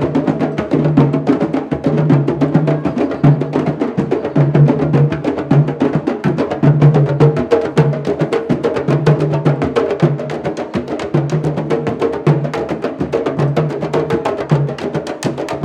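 Candombe drums (tambores) playing together: a fast, dense stream of stick strikes on heads and wooden shells over a low drum note pulsing about once a second.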